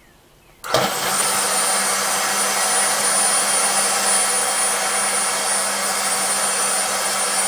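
A 2007 Ford Focus's electric secondary air injection pump switches on suddenly under a jumped relay, a little under a second in, and runs steadily with a high whine, blowing air out of the disconnected hose. It runs, so the pump is good.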